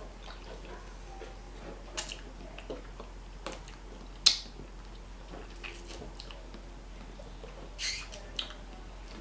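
A person chewing fast food, with a handful of brief wet mouth clicks and smacks over quiet room tone.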